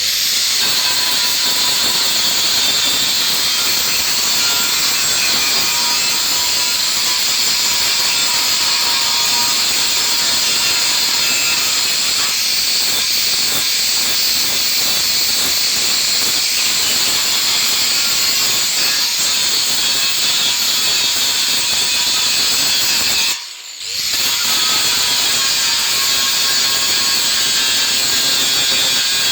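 Steady loud hissing noise, cut off briefly about twenty-three seconds in and then resuming.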